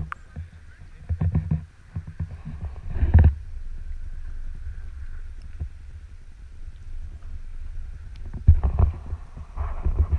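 Muffled low rumbling and irregular bumps from a GoPro camera case being handled and moved just above the water, with louder thumps about three seconds in and near the end.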